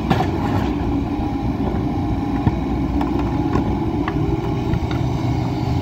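Diesel engine of a Kobelco SK120-3 long-reach excavator running steadily while its hydraulic boom lowers the bucket into the pond mud; a deeper steady note joins about four seconds in.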